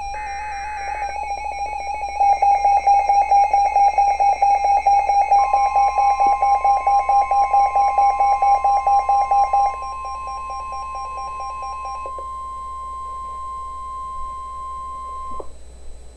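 Emergency alert tones on a NOAA Weather Radio broadcast. The first second is a burst of screeching SAME data. Rapid electronic beeping follows, and about five seconds in the steady 1050 Hz weather radio warning tone starts; it holds for about ten seconds and cuts off shortly before the end. These tones signal that a new warning is about to be read.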